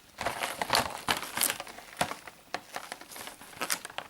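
Packaging of a drill bit set being handled: irregular crinkling and sharp clicks as it is turned over in the hands.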